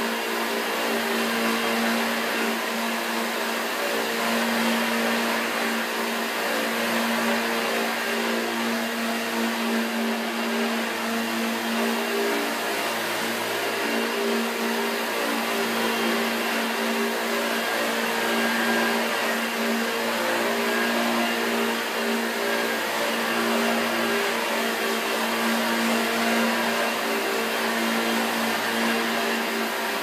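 1986 Hoover Junior 1104 upright vacuum cleaner running over carpet on its replacement motor, back in full working order: a steady, even-pitched motor drone with a rushing air sound. The loudness rises and falls slightly as the cleaner is pushed back and forth.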